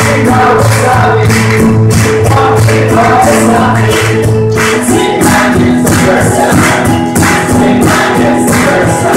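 Live worship band playing: several voices singing together over acoustic guitar, with a cajon keeping a steady beat.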